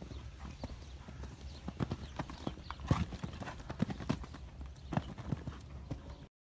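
Hoofbeats of a grey show-jumping horse cantering on arena sand: a run of irregular dull thuds, the loudest about three seconds in at a jump over a fence. The sound cuts off suddenly near the end.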